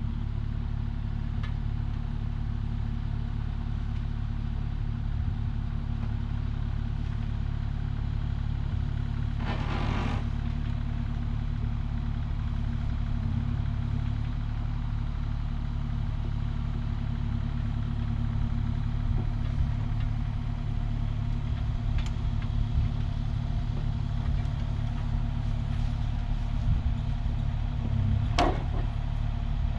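Kubota KX040 mini excavator's diesel engine running steadily while it carries and swings a pair of roof trusses on its forks. A brief burst of noise about ten seconds in and a short sharp sound near the end.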